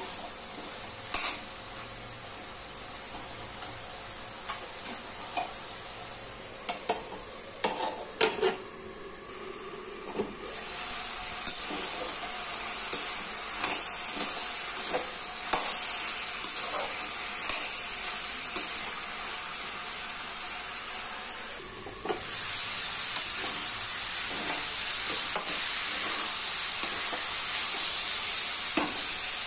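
Diced bottle gourd and chana dal sizzling in a metal kadai as the gourd gives off its water, while a metal spoon stirs and scrapes against the pan with frequent clicks. The sizzle grows louder about two-thirds of the way through.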